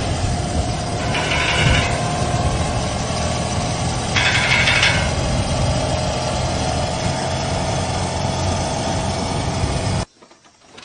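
Motorcycle engine idling with a knocking noise in it, then stopping suddenly about ten seconds in.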